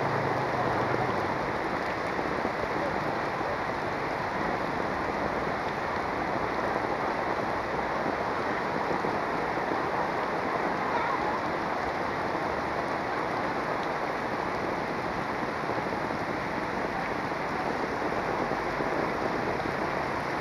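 Heavy rain falling steadily on the street: an even, unbroken hiss.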